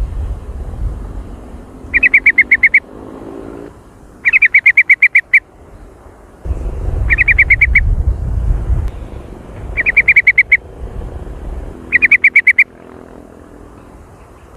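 Trucukan (yellow-vented bulbul) calling in six short bursts of rapid, loud chattering notes, roughly two seconds apart. A low rumble runs under the calls between the bursts.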